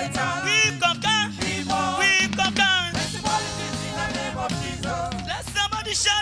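Gospel praise music: voices singing over a live band with a steady bass line.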